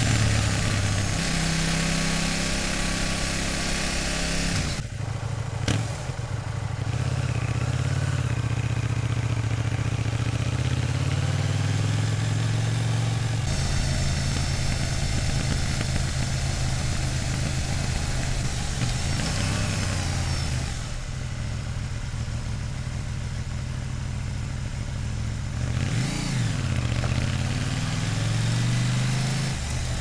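KTM 790 Duke's 799 cc LC8c parallel-twin engine through its stock exhaust, heard from onboard while riding, the engine note rising and falling with throttle and gear changes. Near the end the revs drop and climb again.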